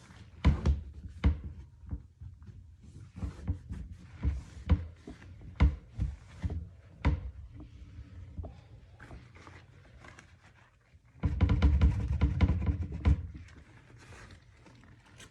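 Wooden kitchen cabinet doors and hardware knocking and clunking at irregular intervals, followed in the last third by a dense rattling stretch lasting about two seconds.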